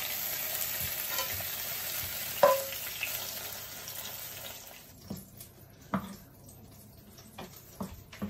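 Chicken breast fillets sizzling in hot oil in a frying pan as they are slid out onto a wooden chopping board, with one sharp clack about two and a half seconds in. The sizzling fades out after about four and a half seconds, and a few light knocks of a knife and fork on the board follow.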